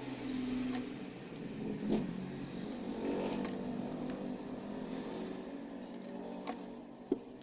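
A motor vehicle engine running and briefly revving, swelling in and then slowly fading away, with a few sharp clicks from hand tools on the TV chassis, the loudest near the end.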